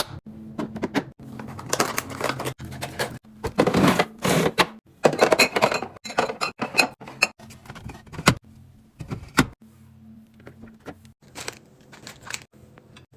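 Busy handling noise: a quick run of clicks, knocks, rustles and scrapes from items and containers being moved about, thickest in the middle and thinning out near the end.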